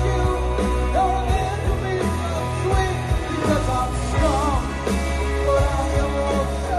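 A male singer performing live with a pop-rock band, his voice over a heavy, steady bass line.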